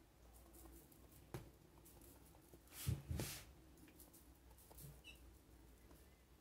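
Faint taps and rustles of a hand-held mesh sieve being shaken to dust icing sugar, with a pair of louder soft knocks about three seconds in.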